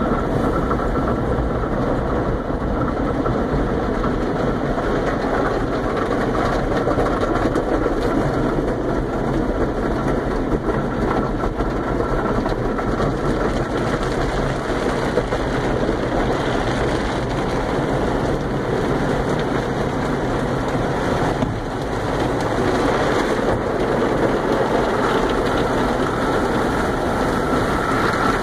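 Automatic car wash running, heard from inside the car's cabin: a steady rush and rumble of water spray and spinning brushes on the bodywork over a low hum.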